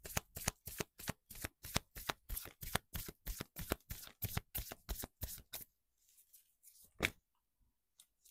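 A deck of tarot cards shuffled by hand, a steady run of card slaps at about four a second that stops about five and a half seconds in. One sharp tap follows about seven seconds in.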